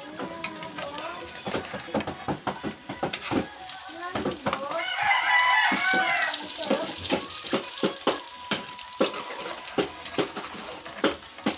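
A metal spatula clacking and scraping against a wok as the noodles are stirred, with many quick sharp knocks. About halfway through, a rooster crows once, a long call lasting about two seconds and louder than the stirring.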